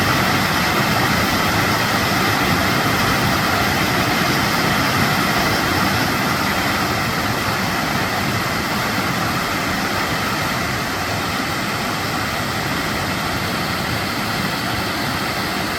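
Hooker Falls waterfall: a steady, loud rush of falling water, easing slightly in level partway through.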